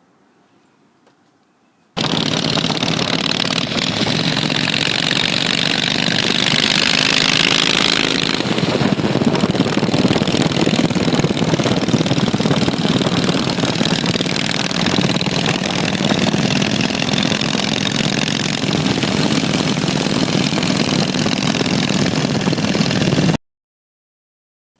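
Shovelhead Harley-Davidson V-twin engine running loud and steady, cutting in abruptly about two seconds in and cutting off abruptly near the end.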